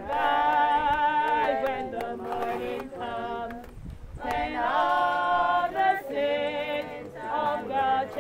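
Group of voices singing a gospel chorus unaccompanied, in long held phrases with a brief breath pause about four seconds in.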